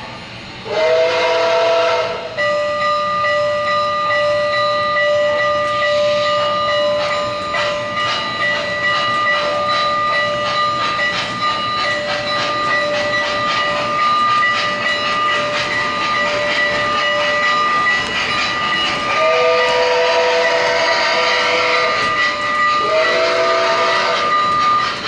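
Sound system of an MTH model Nickel Plate Road Berkshire steam locomotive, No. 765, playing a steam whistle. A short chime-whistle blast comes about a second in, then a steady whistle tone is held for about fifteen seconds, and two more blasts sound near the end, over steam hiss and clicking.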